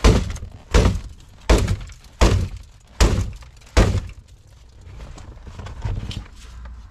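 A foot kicking the inside of a BMW 335i's crash-jammed door six times, a heavy thunk about every three quarters of a second, with glass breaking; handling noise follows.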